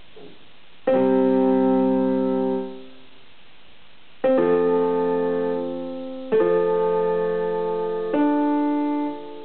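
Yamaha electronic keyboard playing four long held notes in a slow tune. The first comes about a second in, then after a pause three more follow close together.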